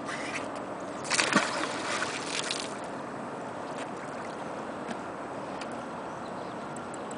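A magnet-fishing magnet, thrown out on its rope, splashes into the river about a second in. A few faint ticks follow as it is pulled back.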